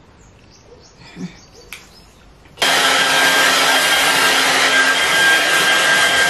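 A handheld hair dryer switches on suddenly about two and a half seconds in, after a few faint knocks, and then runs steadily with a loud rush of air and a steady whine.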